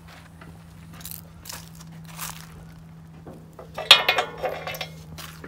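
Loose steel nuts and disc-harrow hardware being handled, with small clinks and taps, then one sharp metallic clank about four seconds in that rings for most of a second.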